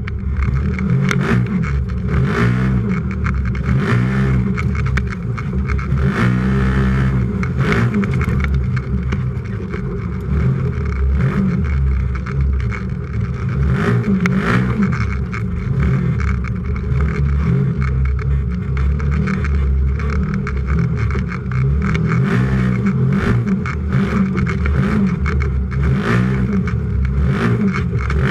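A race UTV's engine heard from inside the cab, revving up and down again and again as the driver gets on and off the throttle. Frequent short knocks and rattles from the chassis over rough ground come through it.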